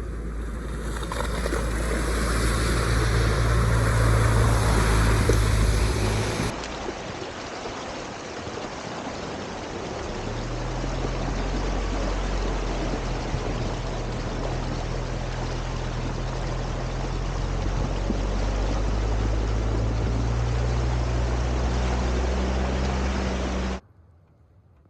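Off-road 4x4 vehicle engine running while driving, with steady rushing noise over it; the sound changes abruptly about six seconds in and cuts off suddenly near the end.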